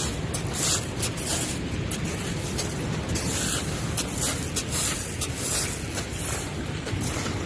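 Steady rushing of the Bow River's rapids, mixed with wind rumbling on the microphone.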